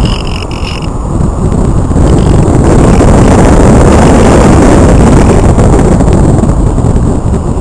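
Loud rush of wind buffeting the onboard camera microphone of a Multiplex Cularis RC glider in flight, a steady low rumble with no clear motor tone.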